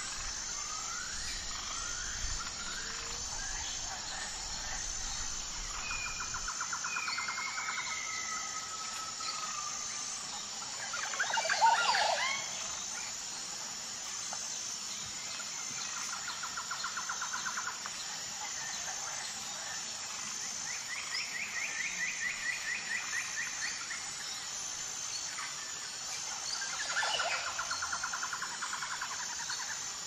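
Steady high insect drone with a regular pulsing tone, under birds calling: whistled rising notes near the start, four short rapid trills, and one louder sweeping call about twelve seconds in.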